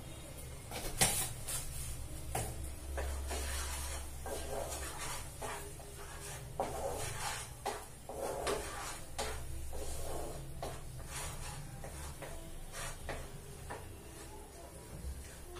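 Wooden spatula stirring and scraping a paste of onion, ginger, garlic and tomato frying in oil in a metal pan, with irregular knocks and scrapes against the pan. A sharper knock about a second in.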